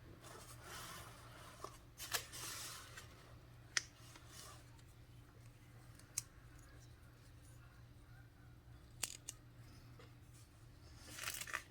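Pen scratching across paper in short strokes as shorthand outlines are written, with a few small sharp clicks between the strokes; faint.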